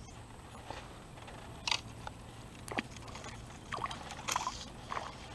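Water splashing and dripping in several short bursts as a small hooked bass is brought in on a fly line.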